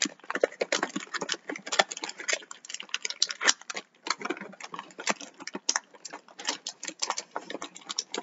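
Small plastic mini figures and their plastic packaging clicking and clattering as they are dumped out and handled: many quick, irregular light clicks.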